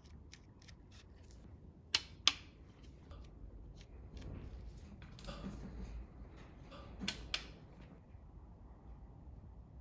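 Light ticks and taps of hand work on the bolts of a BMW M52 engine's timing cover, with two pairs of sharp clicks, one about two seconds in and one about seven seconds in.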